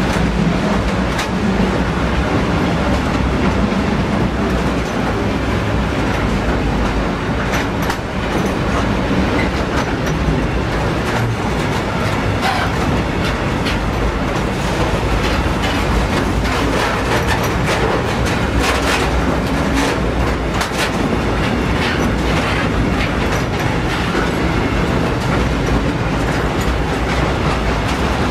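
Freight train's hopper wagons rolling past close by, their wheels clattering on the track with a steady run of sharp irregular clicks and knocks.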